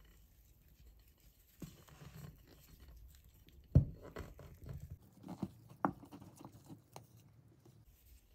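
Soft, sticky bread dough tipped out of a glass mixing bowl onto a floured wooden worktop. A dull thud comes a little under four seconds in as the dough drops out, with a few smaller knocks and scrapes before and after it.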